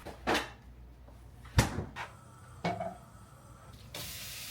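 A few separate knocks and clunks, the sharpest about a second and a half in. Near the end, shrimp go into a hot pan and a steady sizzle starts suddenly.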